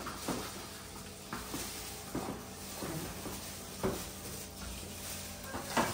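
A few light, separate knocks and clatters of containers and kitchen objects being handled, over a faint steady hum.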